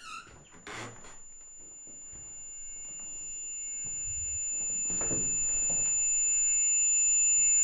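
A high, steady ringing tone, like a film's tension drone, swells slowly and evenly louder, with a few fainter tones under it. A short falling squeak comes right at the start, and faint shuffling movement sounds come in the middle.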